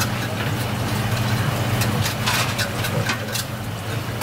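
Steady low machine hum, as from kitchen equipment, with scattered light clicks and taps of a knife and hands on a plastic cutting board.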